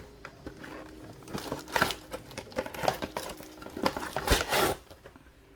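Plastic packaging crinkling and rustling in a series of short bursts, with light clatters, as a plastic waist twister disc is unwrapped and handled.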